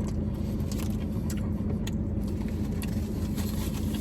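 Steady low hum of an idling vehicle, with a few faint clicks and rustles over it.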